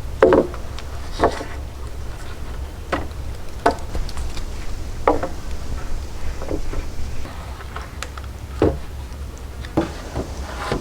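Irregular knocks of a hand tool striking wood, about eight blows spaced a second or two apart.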